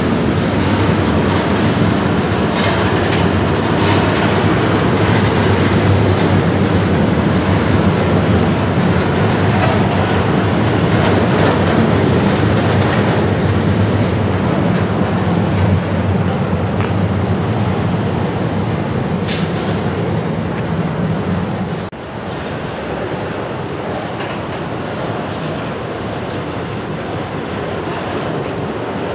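Double-stack container well cars of a freight train rolling slowly past, their steel wheels running on the rails in a steady rumble. The sound drops somewhat in level about three-quarters of the way through.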